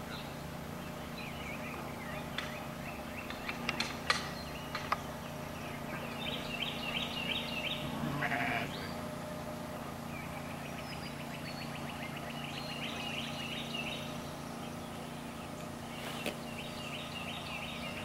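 A sheep bleats once, about eight seconds in, over repeated phrases of birdsong and a faint steady hum. There are a few light clicks around four seconds in.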